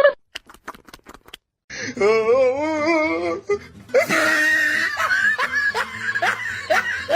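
A few sharp clicks, then a drawn-out wavering call, then a run of laughter over music.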